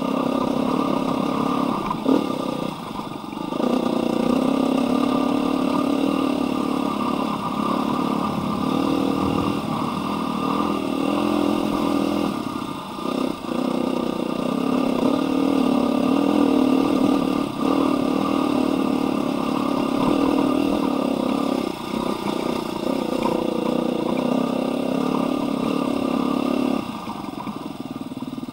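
Dirt bike engine being ridden on a rocky trail, its pitch rising and falling with the throttle and briefly dipping a few times. Near the end the throttle closes and the engine drops to a lower, quieter run.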